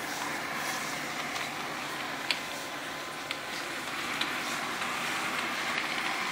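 LG Roboking robot vacuum cleaner running, a steady whirring hiss, with a few light clicks.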